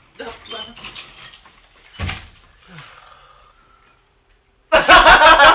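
A door is pulled shut with a knock about two seconds in. Near the end comes a sudden, very loud burst of laughter lasting about a second and a half.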